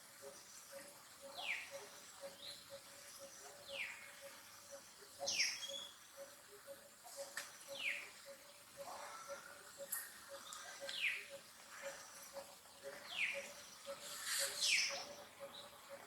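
An animal's repeated short, high calls, each falling quickly in pitch, about one every one to two seconds, with a louder double call near the end.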